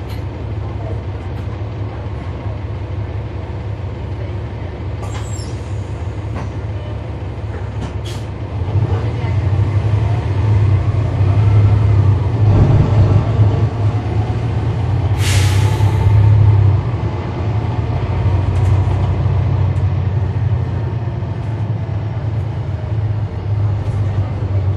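A 2012 NABI 40-SFW transit bus's Cummins ISL9 inline-six diesel running, pulling louder from about eight seconds in and easing off again near seventeen seconds. A short hiss of air comes about fifteen seconds in. The ZF Ecolife automatic transmission is nearly silent under the engine.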